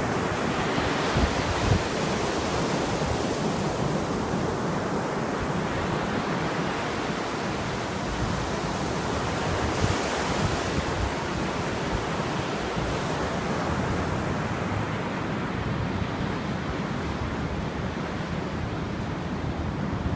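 Caspian Sea waves washing in a continuous rush, with wind buffeting the microphone in low, uneven rumbles.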